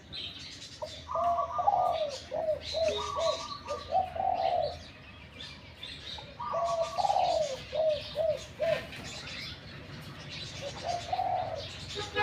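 Caged male spotted dove cooing, two full phrases of several linked, falling coos about five seconds apart and a short coo near the end. Small birds chirp faintly in the background.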